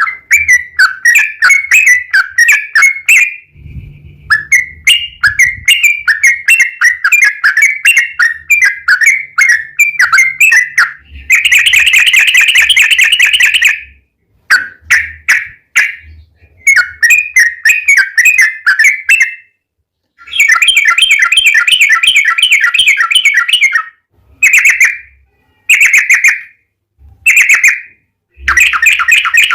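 Yellow-vented bulbul (trucukan) singing loudly. Runs of quick chattering notes alternate with long, very rapid rolling trills (ropel) lasting several seconds each.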